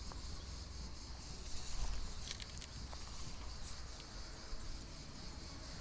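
Quiet outdoor ambience with a steady high insect buzz, and a few faint rustles and clicks from handling the fly rod, reel and line, most around two seconds in.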